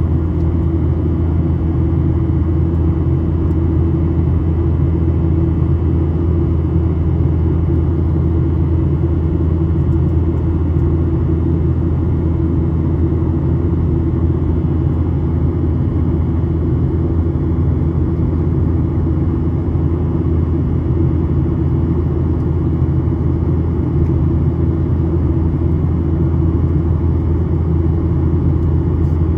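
Boeing 737 jet engines and airflow heard from inside the passenger cabin: a loud, steady low drone with a constant hum and no change in pitch.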